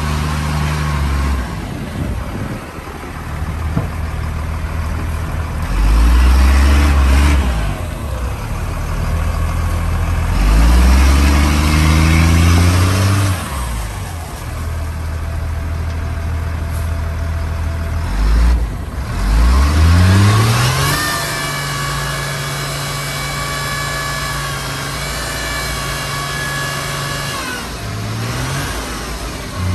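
The Caterpillar diesel engine of a 1991 Chevrolet Kodiak dump truck idles, then is revved three times. Near the end it holds at a higher speed with a steady high whine while the dump bed is raised, and drops back to idle just before the end.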